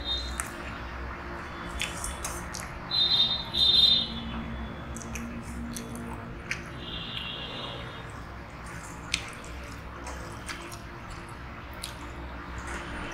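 Wet eating sounds from a meal eaten by hand: fingers squishing and mixing rice with dal on a steel plate, with scattered small clicks. Two brief louder bursts come about three to four seconds in. A low steady hum runs underneath.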